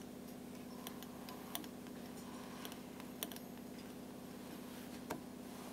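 A few scattered light clicks and taps of fingers fitting a bobbin onto a sewing machine's bobbin winder and handling its thread, over a steady low hum.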